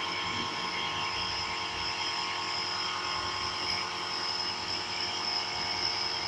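Compressor nebulizer running with a steady motor buzz and a high, even whine, misting medicine for an inhalation treatment.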